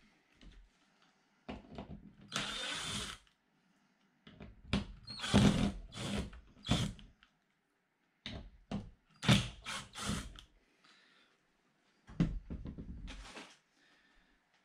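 Ryobi cordless driver running hinge screws on a wooden cabinet door, in four short bursts with pauses between.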